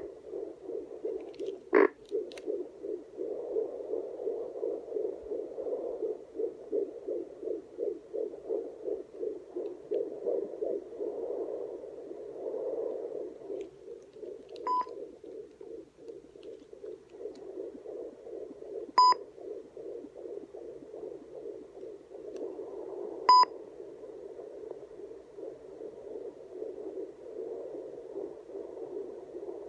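Home fetal Doppler's speaker playing an unborn baby's heartbeat: a fast, even pulse picked up through the mother's belly. Three short beeps sound in the second half.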